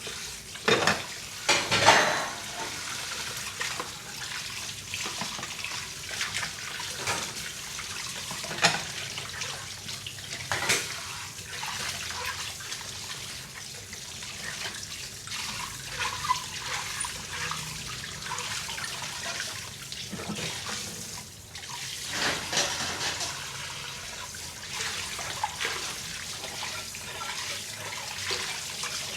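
Dishes being washed by hand in a sink: water running and splashing steadily, with dishes knocking and clinking against each other now and then, loudest about two seconds in.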